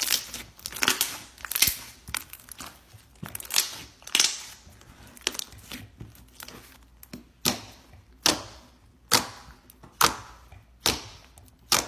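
Hands kneading and pressing glitter slime, making crackling and sharp pops as trapped air pockets burst in it. In the second half the pops come regularly, about one a second.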